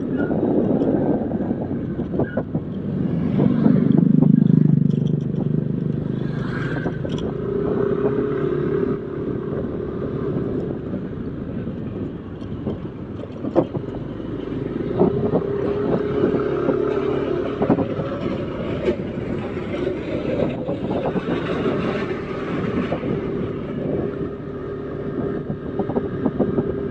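Motorcycle riding in traffic: engine running with a steady hum that comes and goes, and a loud low swell about four seconds in.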